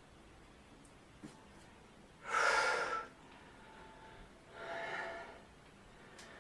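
A man breathing hard through the mouth while flexing through bodybuilding poses. There is a sharp, loud exhale about two seconds in and a softer one about five seconds in.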